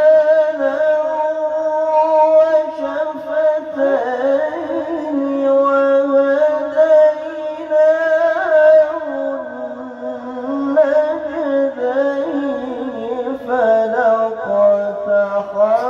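A man reciting the Quran in the drawn-out melodic tajweed style, holding long notes with ornamental wavering and pitch turns.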